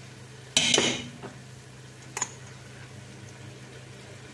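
Small metal measuring spoon scraping and clinking against a stainless steel pot: one loud scrape about half a second in and a short sharp clink about two seconds later, over a steady low hum.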